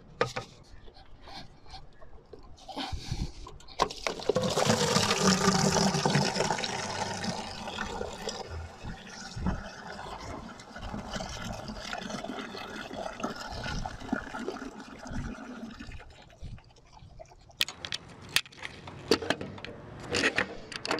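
Engine coolant draining from a truck's coolant expansion tank and pouring into a plastic bucket, starting about four seconds in at full flow and gradually tapering off. A few sharp knocks near the end.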